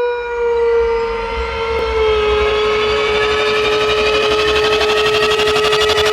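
Dog alarm sound effect: one long, steady held tone with many overtones, dipping slightly in pitch about two seconds in, with a fast flutter growing through the second half.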